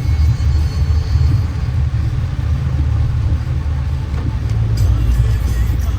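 Steady low rumble of a road vehicle in motion, engine and road noise, with no distinct events.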